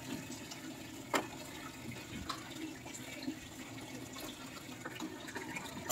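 Faint, even watery noise, with one sharp click about a second in.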